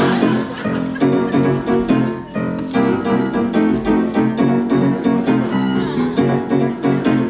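Piano playing a bouncy vaudeville-style dance tune with a steady, even beat.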